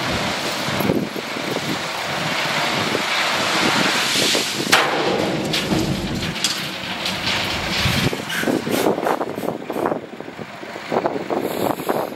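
Diesel truck tractor running beside a steel tipper semi-trailer as the last of a load of crushed stone slides and rattles out of the raised body, with one sharp knock about five seconds in. About eight seconds in the rumble thins to scattered crackles and engine noise.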